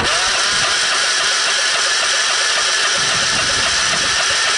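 Starter cranking a Briggs & Stratton V-twin lawn tractor engine over, with one spark plug pulled. It is a steady cranking whir that starts suddenly and does not catch.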